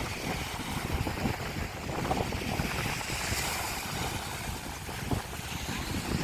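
Strong wind buffeting the microphone in steady rumbling gusts, with the hiss of sea waves washing on the shore behind it.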